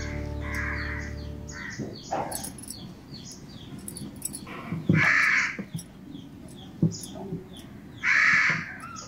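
Crows cawing: harsh calls near the start, again about five seconds in and near the end, with faint short chirps of small birds between.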